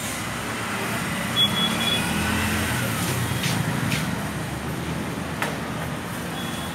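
Road traffic noise, with vehicle engines running and one vehicle passing about two to three seconds in. A few sharp clinks of a steel plate on a steel counter come near the middle.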